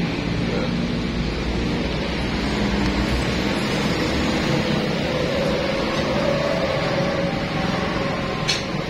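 Steady mechanical hum and rumble of background noise, with one sharp click near the end.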